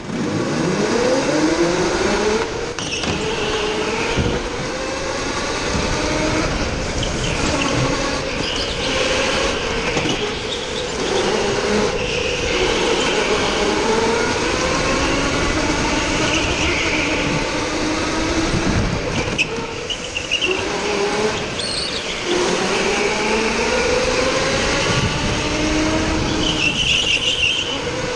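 Go-kart engines running in a race, their pitch rising and falling over and over as they speed up and ease off, several engines overlapping at times.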